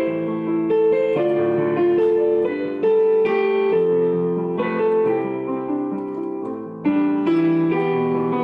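Digital piano playing a slow piece in held chords, the notes changing every half second or so; the sound dies away a little and then a new, louder chord is struck near the end.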